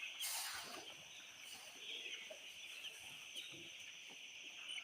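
A flock of free-range chickens clucking softly while they crowd in to feed.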